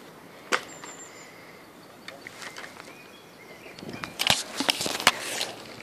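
A single sharp click about half a second in, then a quick run of sharp knocks and scuffs from about four seconds on, the loudest near the end. A brief high bird chirp comes early.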